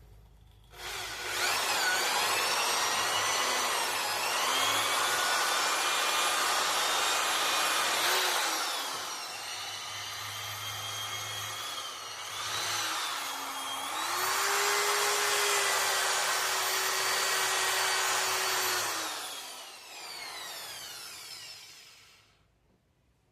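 Handheld electric power tool running against a Honda Biz 110 cylinder head, scouring off carbon deposits. The motor's pitch sags several times as the tool is pressed in and recovers as it is eased off, then the tool spins down near the end.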